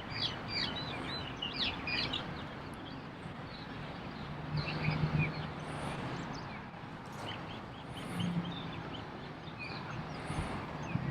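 Small birds chirping over steady outdoor background noise, with a quick flurry of chirps in the first two seconds and scattered chirps after. A low hum swells briefly about five seconds in and again near eight seconds.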